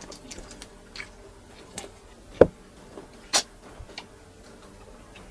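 Close-up eating sounds of grilled chicken and rice eaten by hand: scattered small clicks of chewing and lip smacks, a dull thump about two and a half seconds in, and a sharp smack about a second later.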